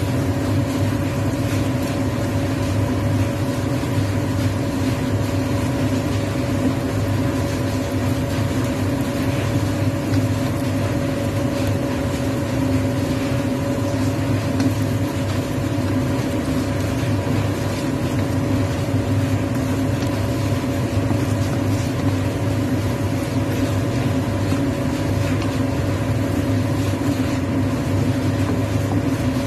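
Steady machine hum with several held tones, over squid and green bell pepper frying in a wok.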